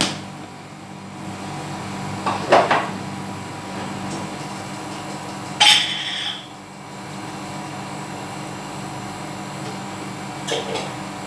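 A few knocks and clinks of kitchen containers and cookware. The loudest is a ringing clink about six seconds in, over a steady background hum.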